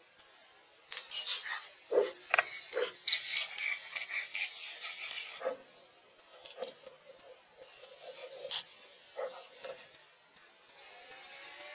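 Scraping and rubbing with light knocks and clinks. The sounds come thickly for the first five seconds or so, then thin out to scattered clicks.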